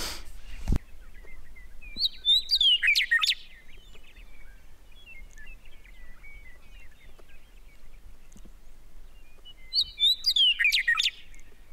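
Western meadowlark singing: two song phrases about eight seconds apart, each a run of clear whistles that slide downward and end in a quick warble. Faint chirps between the phrases, and a brief thump in the first second.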